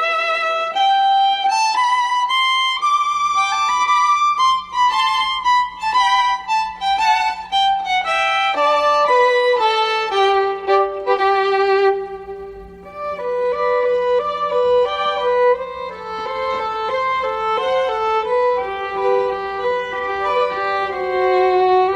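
Background music: a violin playing a melody, with a short dip in the middle.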